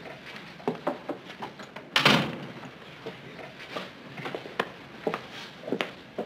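An office door shut with a thump about two seconds in, followed by scattered light taps of footsteps on the floor.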